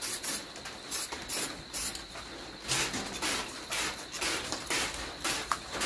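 Aerosol spray-paint can giving a quick run of short hissing bursts, about three a second, misting a light coat of brown paint.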